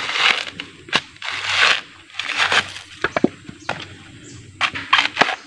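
Dry crunching and cracking noises in several short spells, with a few sharp clicks between them.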